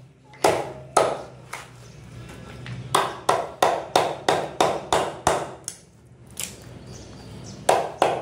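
Heavy butcher's cleaver chopping lamb ribs into pieces on a round wooden log block: a couple of sharp chops, then a quick run of about three chops a second for a few seconds, then a few more near the end.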